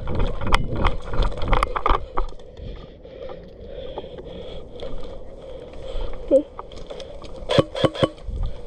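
Footsteps and kit rustling as a player moves, a run of knocks in the first two seconds, then quieter. Near the end come three sharp clicks close together.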